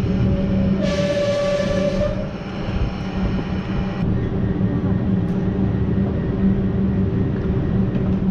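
Melbourne Metro electric suburban train braking to a stand at a platform: a steady electrical hum with a pitched tone from its running gear, and a short loud hiss about a second in. From about four seconds in it stands still with a steady hum and a couple of small clicks.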